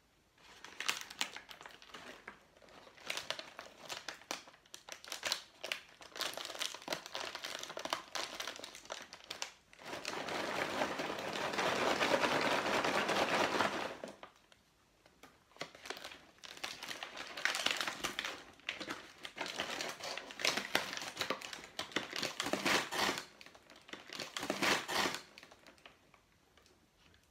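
Paper microwave popcorn bag crinkling and rustling as it is handled and pulled open, in irregular bursts, with a louder, steadier rustle lasting about four seconds in the middle.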